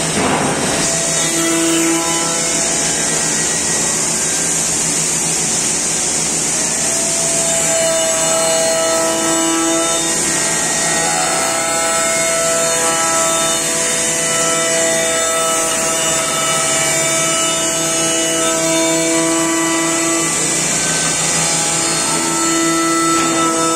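Bacci Master CNC machining centre's spindle running and routing a curved wooden chair part. It is a steady high whine with lower tones that come and go as the cutter moves over the wood.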